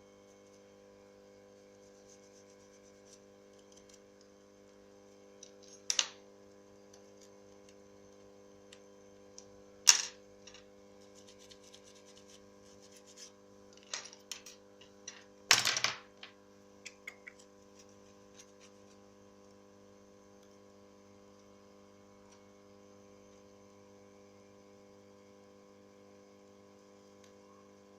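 Scattered sharp clicks and taps of small tools and plastic phone parts being handled during a phone repair, with the loudest cluster about halfway through, over a steady electrical hum.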